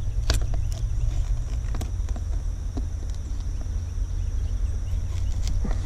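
Scattered light knocks and clicks of gear being handled in an aluminum canoe, irregularly spaced, over a steady low rumble and a thin steady high tone.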